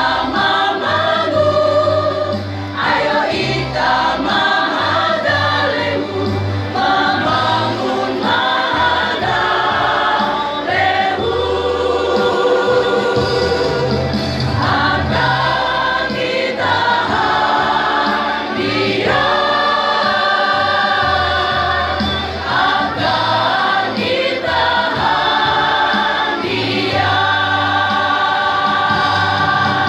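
Mixed choir of men and women singing a song together, with a low bass note underneath that shifts every couple of seconds.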